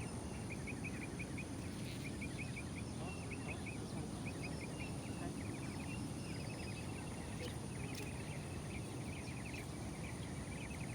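Outdoor pond ambience: short bursts of rapid clicking chirps from insects repeat again and again over a steady low rumble.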